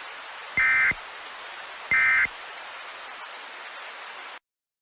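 Emergency Alert System end-of-message tones: short bursts of digital data warble, the repeated "NNNN" code, about 1.4 s apart, two of them here, over steady static hiss. The hiss cuts off suddenly near the end.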